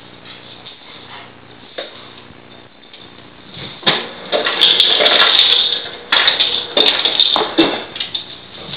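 Two Newfoundland dogs playing rough with a stuffed toy: after a quiet start, a run of loud, noisy scuffling bursts with a few sharp clicks starts about four seconds in and lasts some four seconds.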